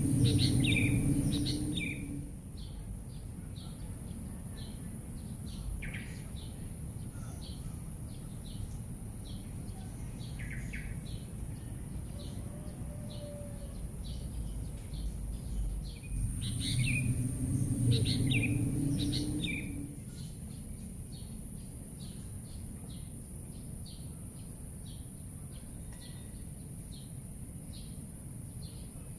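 Birds chirping, short calls repeating throughout, over a steady high-pitched hiss. A low rumble swells louder at the start and again about seventeen seconds in.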